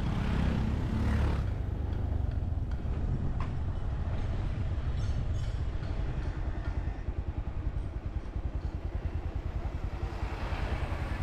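Motorcycle running along the road with a steady low engine rumble; a rush of noise sweeps in during the first second and again near the end.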